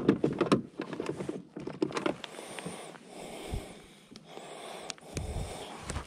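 Close handling noise in a plastic fishing kayak as a landed fish and the landing net are dealt with: a quick run of clicks, knocks and rustles in the first two seconds, then softer rustling and a few dull bumps on the hull near the end.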